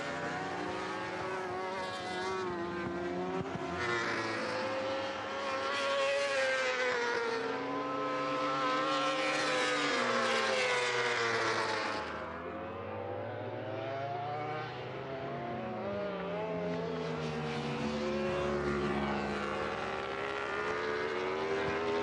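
Several 1000cc superbike engines at racing speed, their notes rising and falling again and again through gear changes. The sound shifts and dips slightly about halfway through.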